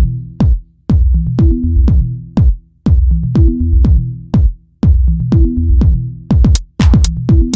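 Electronic dance music with a heavy drum-machine beat and deep bass notes repeating about every two seconds.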